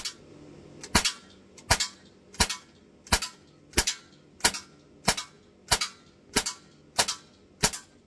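Crosman C11 BB pistol, converted to run on high-pressure air through a remote line instead of CO2 cartridges, firing about a dozen sharp shots in steady succession, roughly three every two seconds.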